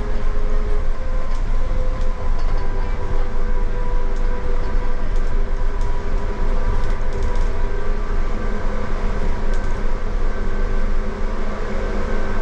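Tateyama Tunnel Trolley Bus, an electric trolleybus, running steadily through its tunnel, heard from inside the cabin: a constant low rumble with a steady electric motor whine over it.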